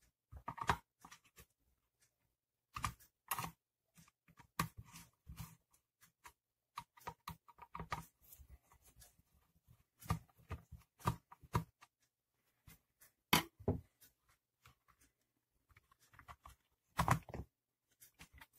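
Screwdriver undoing small screws in a steam iron's plastic housing, with irregular clicks, taps and short scrapes of metal on plastic coming in clusters.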